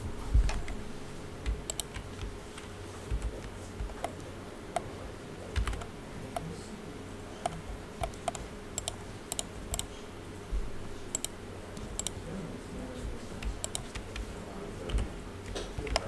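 Irregular clicks and taps of a computer keyboard and mouse, one or two at a time with short pauses, over a faint steady hum.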